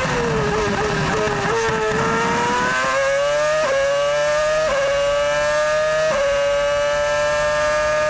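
Ferrari F2007's 2.4-litre V8 Formula One engine, recorded onboard. The engine note falls in steps through downshifts under braking over the first second and a half, then climbs as the car accelerates, with three quick upshifts over the next few seconds before it holds at high revs.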